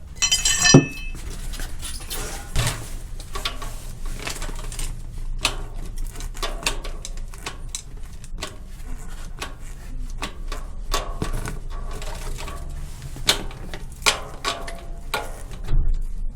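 Metal clinks, clicks and knocks from bicycle parts and tools being handled during a pedal swap. There is a ringing metallic clink about half a second in.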